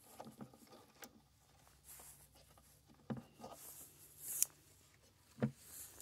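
Faint handling sounds: scattered light clicks, knocks and rustling as a plywood board and battery cable clamps are moved about. A sharper knock comes about three seconds in and another near the end, with a brief scraping rustle between them.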